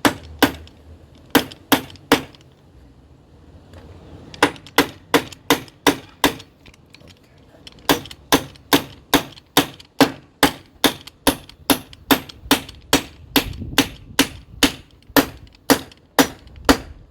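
Hammer driving a large nail into a wooden board: a few blows, a pause of about two seconds, then steady blows at about two to three a second.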